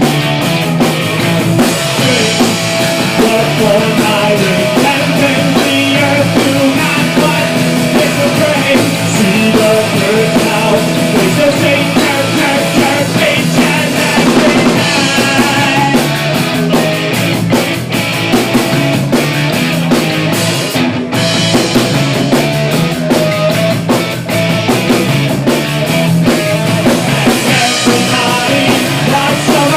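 A punk rock band playing live: a fast song with electric guitar and a drum kit.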